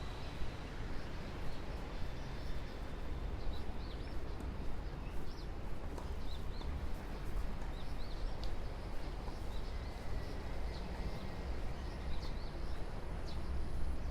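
Short, scattered bird chirps over a steady low background rumble.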